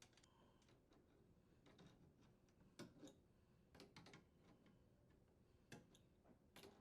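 Near silence with a few faint, scattered clicks from a wrench working the compression nut that joins the water supply line to the refrigerator's inlet valve.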